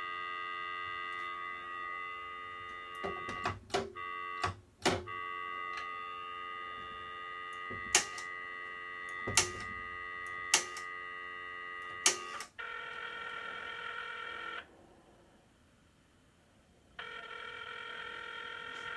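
Antique three-slot rotary payphone's handset giving a steady dial tone, with sharp clicks as the rotary dial is worked. About twelve seconds in the dial tone stops and the ringing tone follows: two bursts of about two seconds each, with a pause between, a sign that the call is going through.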